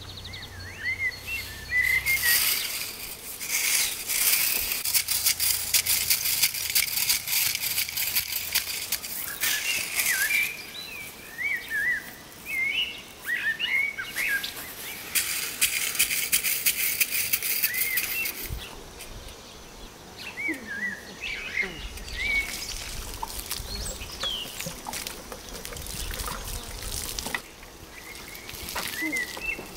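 A garden tool scraping and scratching through dry, stony soil in long spells, while songbirds chirp throughout. Near the end, water splashes from a watering can onto the soil.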